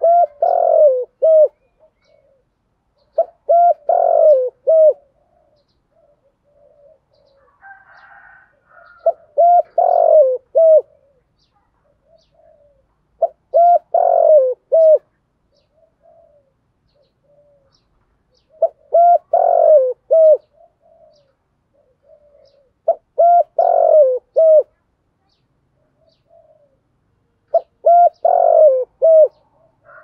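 Spotted dove cooing: seven loud phrases of a few coo notes each, repeated about every four to five seconds, with softer low coos in between.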